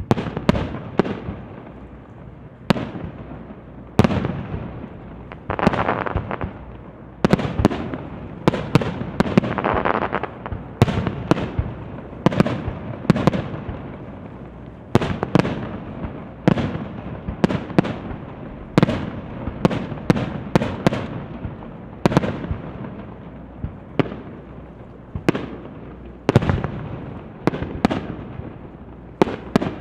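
Aerial fireworks from a starmine barrage: shells bursting in rapid succession, sharp bangs one after another, each with a short rumbling echo, several a second at the busiest.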